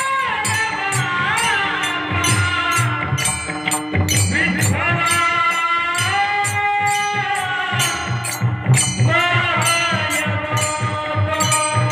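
Marathi devotional bhajan: a male voice sings long, wavering, ornamented held notes. Small hand cymbals strike in a steady rhythm and a drum beats underneath.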